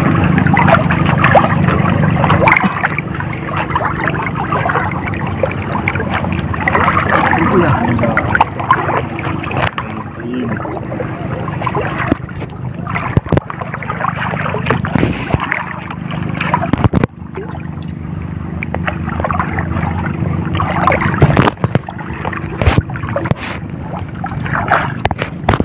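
Shallow seawater splashing and sloshing around men wading and handling a weighted fishing net, with wind on the microphone and a steady low hum underneath. Sharp knocks come now and then.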